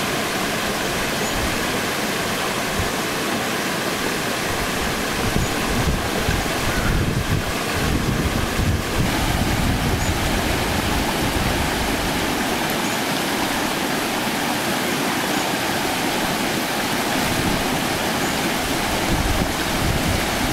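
Shallow rocky stream rushing over stones and down a small cascade: a steady noise of running water, a little louder for a few seconds around the middle.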